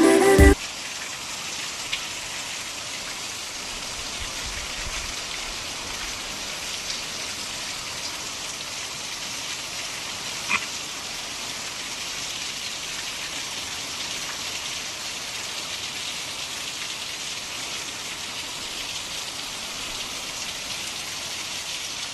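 Steady rain falling, an even hiss of drops on surfaces. One short sharp click about ten seconds in.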